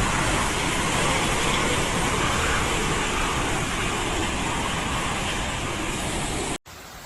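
Loud, steady rushing noise that cuts off abruptly near the end, giving way to a quieter hiss.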